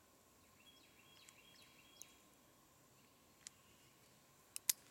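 Quiet handling of a .22 single-action revolver and its cartridges: a few faint clicks, then two sharp clicks close together near the end. Faint bird chirps in the first two seconds.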